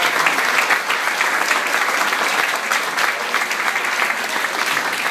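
Audience applauding: a dense, steady clapping from many hands.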